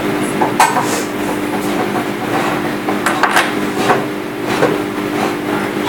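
Scattered light clicks and taps of small plastic servo parts being handled by hand as an O-ring is fitted back into a Hitec HS-805BB servo, over a steady low hum.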